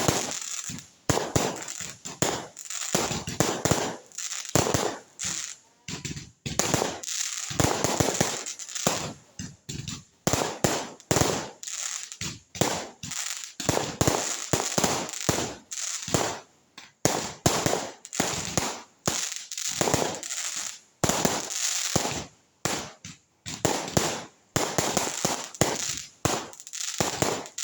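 Fireworks going off in a rapid, irregular series of sharp bangs, about one or two a second, each with a short trailing tail.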